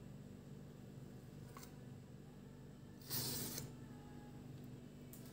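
Brief rustle of a sandwich's paper wrapper being handled about three seconds in, over a steady low hum.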